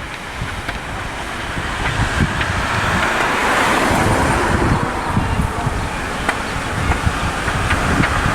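Road traffic, a wash of noise that swells as a vehicle passes about halfway through and builds again near the end. Wind gusts on the camcorder's microphone make a rough rumble underneath.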